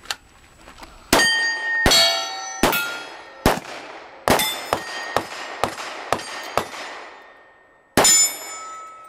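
A rapid string of gunshots at steel plate targets, each shot followed by the ringing clang of struck steel. There are about ten shots in quick succession from about a second in, then a pause and one last shot with a loud, long ring near the end.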